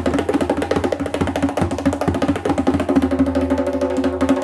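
Dohlla (bass darbuka) played in a fast, even finger roll, with closed strokes, the hand pressing into the skin, worked into the roll. The drum's low ring carries underneath the strokes.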